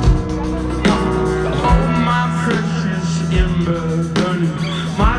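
Rock band playing live, recorded from among the audience: a steady drum beat about every second under sustained bass and guitar, with a singing voice over the top.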